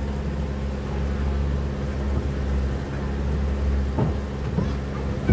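Tour boat's engine running steadily underway, a low, even drone.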